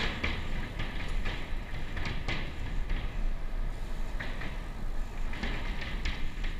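Riding noise of a bicycle picked up by a camera on the bike: a steady low rumble with wind on the microphone and irregular rattling clicks as it rolls along the path.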